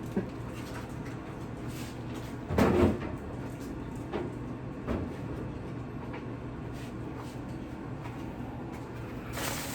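Packaged groceries being handled and set into a refrigerator: one louder clunk a little under three seconds in, and a few light knocks of containers against shelves.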